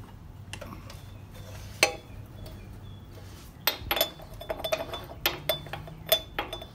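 Metal clinks and taps of a steel axle spacer being fitted onto the rear axle rod through the wheel hub: one sharp click about two seconds in, then a quick run of light ringing clinks through the second half.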